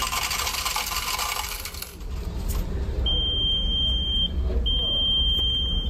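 Change machine paying out coins: a couple of seconds of coins jangling and clattering into the tray, followed by two long, high electronic beeps. A steady low hum from the ferry's engines runs underneath.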